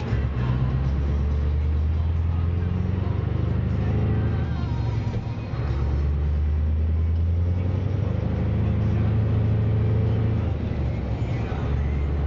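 Scania R500 truck's V8 diesel engine heard from inside the cab, pulling under load. Its low drone dips briefly twice, about halfway through and near the end, as it changes gear.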